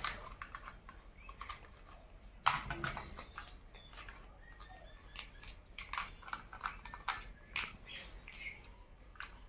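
Light plastic clicks, taps and short squeaky scrapes as a toy screwdriver and toy spanner work on a plastic toy backhoe tractor and its parts are fitted together. The loudest click comes about two and a half seconds in.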